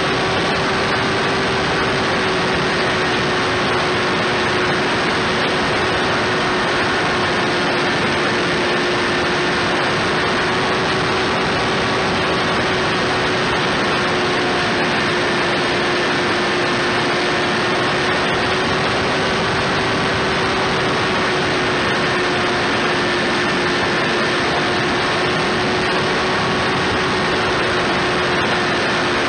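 Electric motor and propeller of a foam-board RC plane running steadily in flight, heard from an onboard camera: a held whine that wavers slightly in pitch, over a thick rush of wind on the microphone.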